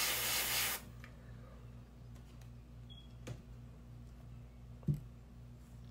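Airbrush blowing cold air to dry the paint on the lure: a hiss that cuts off suddenly within the first second. Then a low steady hum with two light knocks, the second louder.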